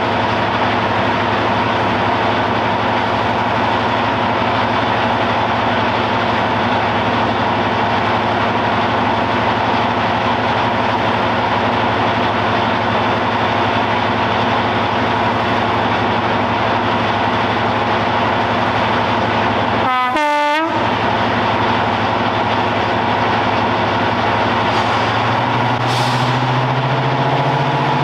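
Class 55 Deltic diesel locomotive idling with a steady hum, from its Napier Deltic two-stroke opposed-piston engines. About two-thirds through there is a brief break with a quick falling run of tones. Near the end the engine note rises and stays higher as the engines speed up.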